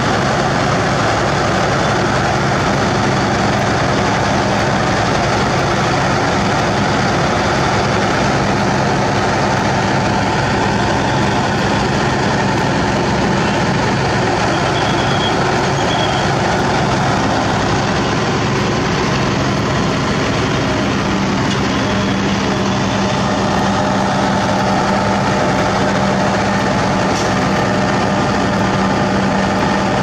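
Heavy road milling machine's diesel engine running steadily under load, heard from on its engine deck right beside the exhaust stack as the machine drives along. The low engine note grows a little stronger about two-thirds of the way in.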